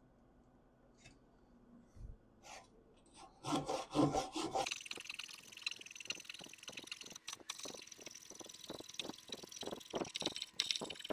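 Japanese pull saw cutting through a wooden 4x4 by hand, in quick even strokes about three a second. The strokes start after a few light taps and a couple of louder knocks about three to four seconds in.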